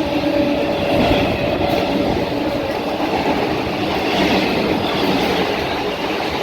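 EMU (electric multiple unit) local train running through at speed, its wheels clattering over the rail joints. The last of its horn dies away in the first two seconds.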